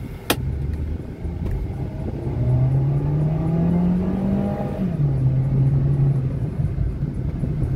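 Honda City's 1.3-litre four-cylinder engine heard from inside the cabin, pulling under hard acceleration: its note rises steadily, then drops suddenly about five seconds in as the automatic gearbox shifts up, and holds steady. A single sharp click sounds just after the start.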